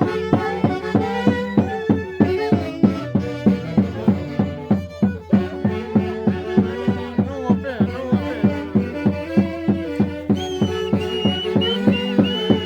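Andean Santiago dance music from the Mantaro Valley: violins carry the melody over a steady, even drumbeat, with a high melody line coming in near the end.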